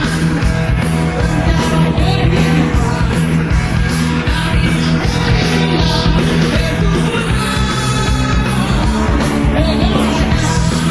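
Rock music with singing over a steady, driving bass line.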